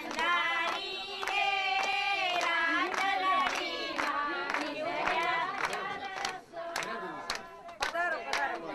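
Women singing a devotional song in chorus, with held, wavering notes, accompanied by repeated sharp hand claps.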